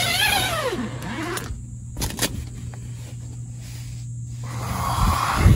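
Tent door zipper pulled open in one long stroke that rises and then falls in pitch over about the first second, then a couple of sharp clicks about two seconds in. A low rumble builds near the end and is the loudest part.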